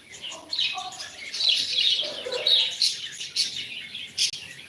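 Pet cockatiel chattering with many short, soft chirps.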